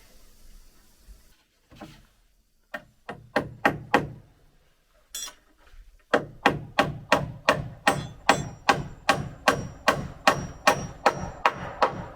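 Hammer driving nails into timber framing: a few separate blows at first, then a steady run of about three strikes a second with a metallic ring.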